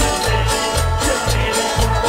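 Live band playing fast, upbeat Latin-style worship music, a bouncing bass line in short repeated notes under steady drums, with no clear singing.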